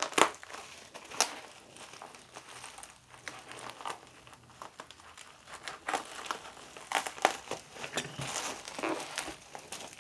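Plastic bubble wrap crinkling and crackling as hands handle and unwrap a bubble-wrapped package. Sharp crackles come just after the start and about a second in. The sound thins out in the middle, then a busier run of crinkling follows in the second half as the wrap is pulled open.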